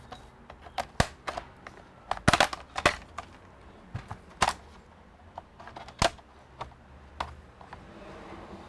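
Plastic retaining clips of an ASUS Vivobook 15 laptop's bottom cover snapping loose as a pry tool is worked along the edge. About ten sharp clicks and snaps come at uneven intervals.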